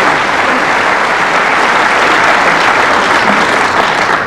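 Audience applauding steadily, the clapping dying away right at the end.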